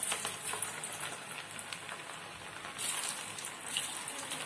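Batter-coated paneer cubes deep-frying in hot oil in a steel pan: a dense, steady crackling sizzle that swells briefly about three seconds in as more pieces go into the oil.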